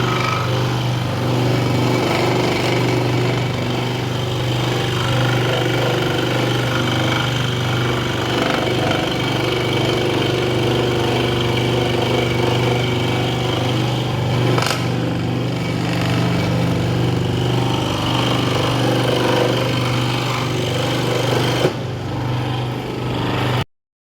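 Proxxon scroll saw running steadily, its reciprocating blade cutting wood, with a strong low hum throughout. A single sharp click comes about fifteen seconds in, and the sound cuts off abruptly near the end.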